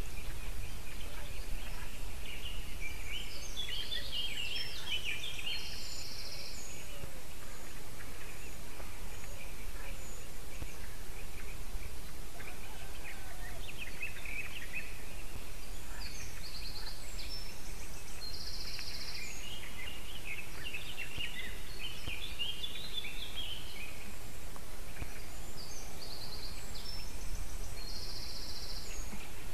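Songbirds singing, one of them repeating a short phrase that ends in buzzy notes about every ten seconds, with other chirps between, over a steady low rumble.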